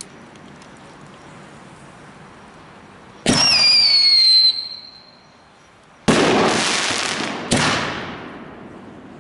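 Consumer artillery firework shells (Winda Tank Busters canister shells) going off. About three seconds in, a sharp pop followed by a whistle falling in pitch for about a second, the shell's whistling tail. Then two loud bangs, about six and seven and a half seconds in, each trailing off over a second or so.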